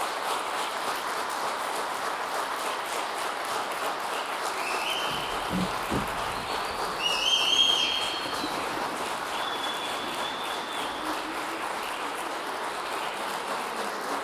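Theatre audience applauding steadily, with a few short high calls rising above the clapping about five seconds in and again around seven seconds.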